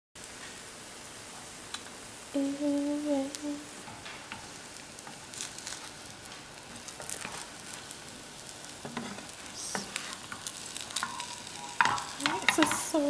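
French toast frying in a nonstick pan: a steady sizzle, with a wooden spatula scraping and tapping against the pan as it is worked under the bread. A short hummed note from a person about two seconds in is the loudest sound, and brief voice sounds come in near the end.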